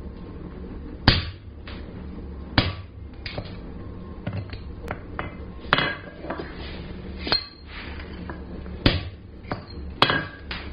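Hand hammer striking a punch to drive screw holes through a red-hot 3/8-inch square mild steel bar on the anvil: about seven sharp metallic blows, roughly one every second or so, over a steady low hum.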